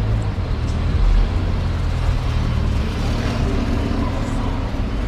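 Steady low rumble of motor vehicles, road traffic or an engine running nearby.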